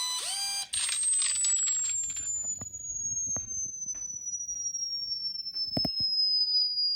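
A single very high-pitched electronic tone sliding slowly and steadily down in pitch, with a few sharp knocks just before the end. Briefly at the start, the last of a repeating rising chirp sound.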